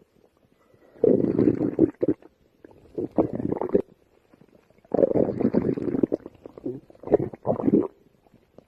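A hungry person's empty stomach growling in four rumbles with short quiet gaps between, the longest about five seconds in.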